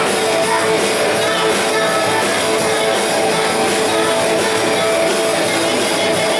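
Rock-and-roll band playing live, electric guitars to the fore, loud and steady.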